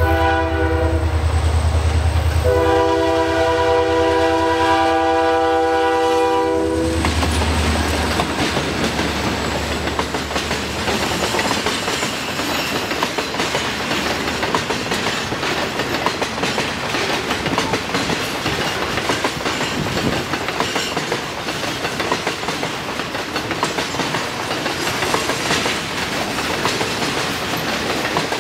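CN diesel freight locomotive sounding its horn for a level crossing: the end of one blast, then a long blast of about four seconds, over the deep rumble of its engine. From about seven seconds in, a long string of autorack cars rolls past with steady wheel clatter on the rails.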